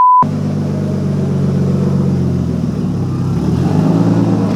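A censor bleep cuts off a quarter second in, then a car engine runs steadily, its pitch shifting slightly about three and a half seconds in.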